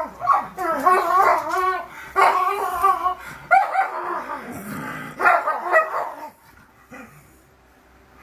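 A dog vocalising in a run of about five pitched, wavering calls, each under a second long, then falling quiet about six seconds in.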